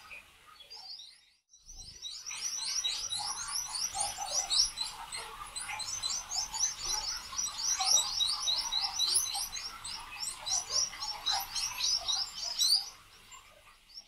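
Small birds chirping at a nest: a fast run of short, high chirps, several a second, starting about a second in and stopping near the end.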